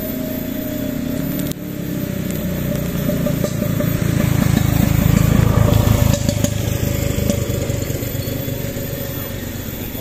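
A motorcycle engine passing by, growing louder to a peak about halfway through and then fading away.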